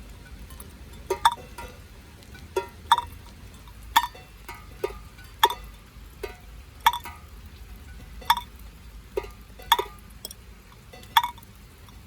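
Rainwater drips falling into containers: a bright pinging plink about every one and a half seconds, alternating with a lower, duller drop in between, making a slow musical pattern.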